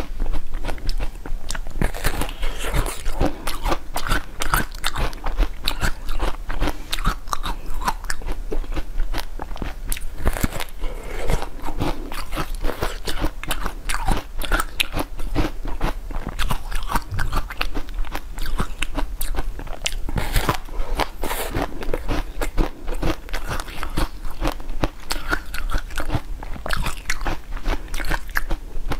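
Biting and chewing a watermelon-shaped jelly with a crisp outer shell: many small crunches and crackles in quick succession throughout.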